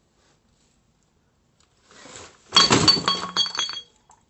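Near silence, then a faint rustle, then a little past halfway a sudden crash with about a second of clinking and ringing pieces.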